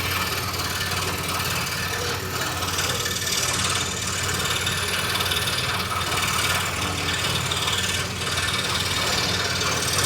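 Scroll saw running, its blade cutting a jigsaw puzzle piece out of wood: a steady motor hum under a hissing, rasping cut that stops right at the end.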